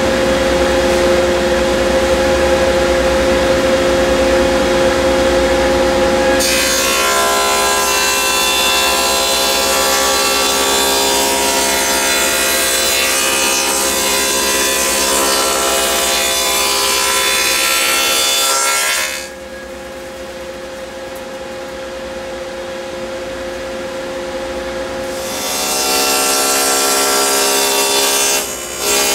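Table saw with a stacked dado cutter running steadily, cutting rabbets into a plywood panel. The cut adds a loud cutting noise from about six seconds in to about nineteen seconds. The saw then runs free for a few seconds, and a second cut starts about twenty-five seconds in.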